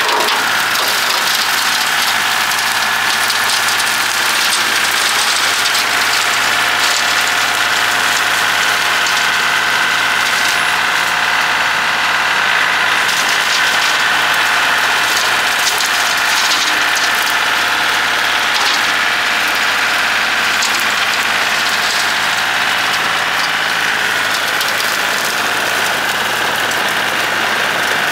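John Deere 790 compact tractor's three-cylinder diesel engine running steadily, with a steady high whine over it.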